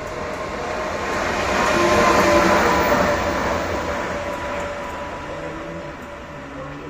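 Pesa Gama 111Ed electric locomotive running light past, without cars: wheel and rail noise with a steady electric whine, growing louder to a peak about two and a half seconds in, then fading away.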